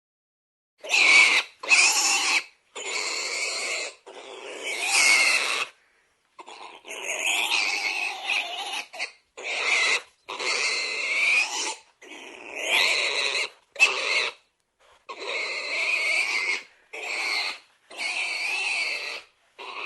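An animal squealing in a series of short high-pitched calls with brief gaps between them, starting about a second in.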